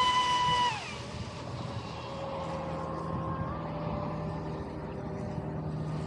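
Radio-controlled Pro Boat Sonicwake V2 deep-V boat's brushless motor whining steadily at speed. Less than a second in, the whine falls in pitch and drops away as the throttle eases. A softer, lower whine then carries on, with small shifts in pitch.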